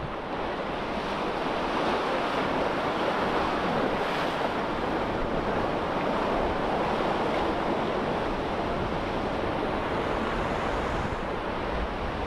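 Sea surf breaking and washing over a rock ledge, a steady rushing wash that swells over the first couple of seconds, with wind buffeting the microphone.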